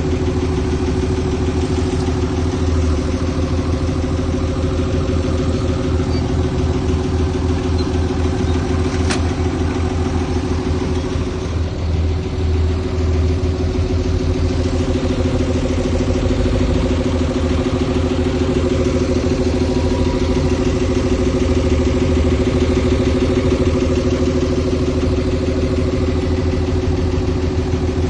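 Heavy-equipment diesel engine running steadily at a near-constant speed, with a single brief click about nine seconds in.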